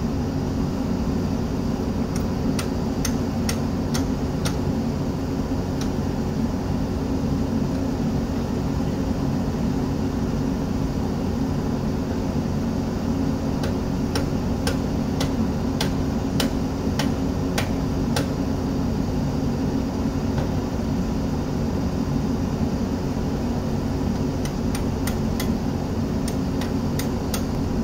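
Hyundai excavator's diesel engine running steadily. Three short runs of sharp metallic taps, roughly two a second, come a couple of seconds in, midway and near the end.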